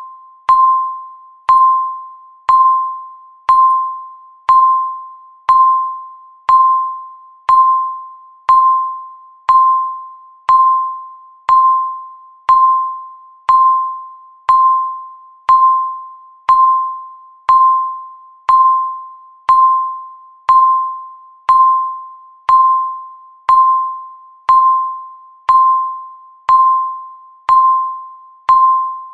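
Countdown timer's tick sounding once a second, about 29 times. Each tick is a sharp click with a short ringing tone that fades before the next.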